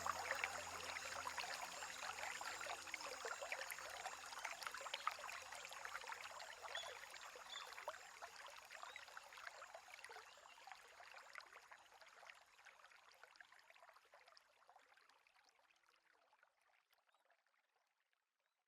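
Crackling fire ambience, a dense patter of small pops over a soft hiss, slowly fading out to silence near the end. The last notes of soft background music die away at the start.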